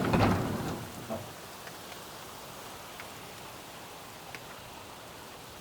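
Heavy rain falling steadily, an even hiss with a few separate drops ticking.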